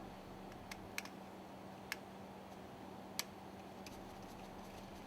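Four faint, sharp clicks of small parts and tools being handled during hand assembly work on the lubricator, over a low steady hum.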